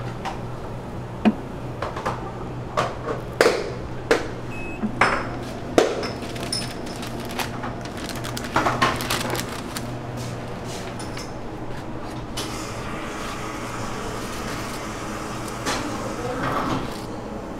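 Utensils and containers clinking and knocking during food preparation, about a dozen sharp knocks mostly in the first ten seconds, with more clatter near the end, over a steady low hum of kitchen equipment.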